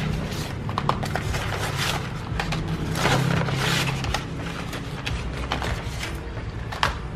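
Kraft-paper envelope crinkling and rustling as a hand works inside it, with flat cardboard boxes sliding out and being set down with light knocks.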